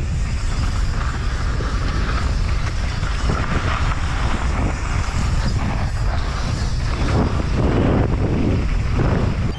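Mountain bike descending fast on a loose, dry dirt trail: steady wind rush on the camera microphone over the rumble of the tyres rolling on dirt.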